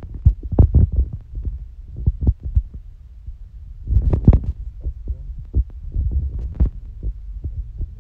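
Irregular muffled thumps and knocks with low rumbling, like a phone's microphone being handled or rubbed. The loudest cluster comes about four seconds in. The rumble goes with the stream's sound dropping out.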